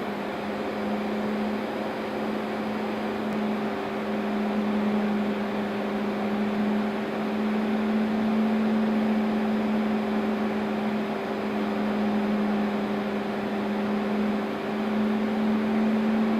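Machinery of a biomass-fired steam boiler plant running steadily: a constant low drone over an even rushing noise.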